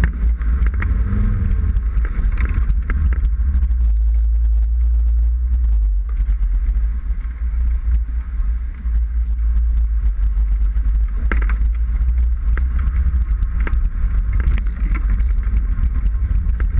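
Off-road 4x4 engine running with a deep, steady rumble; the pitch swells and falls briefly about a second in.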